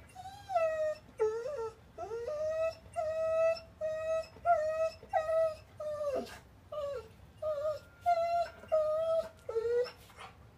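Dog whining: more than a dozen short, high-pitched cries in a row, each wavering up and down.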